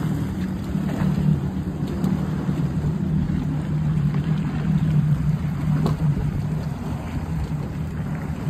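Jet ski engine running with a steady low drone as the watercraft moves off across the water, pushing out spray behind it.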